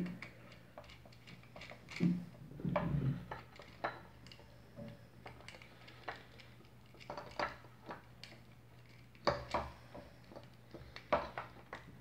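Small screwdriver clicking and scraping in the terminal screws of a plastic lamp socket while wires are fitted, with scattered light handling knocks, a couple of them louder about two to three seconds in. A faint steady low hum runs underneath.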